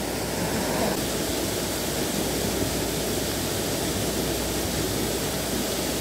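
Steady rushing of water from a waterfall pouring into a pool.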